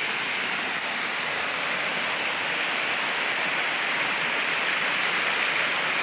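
Waterfall cascade: shallow water rushing steadily down a sloping rock slab.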